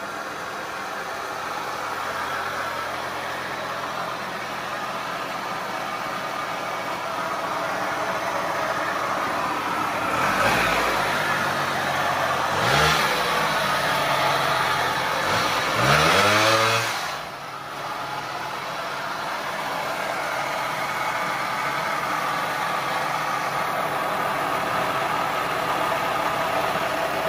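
Suzuki LT80 quad's small two-stroke single-cylinder engine running steadily, revved up three times in the middle. It has been brought back to life after sitting and runs well.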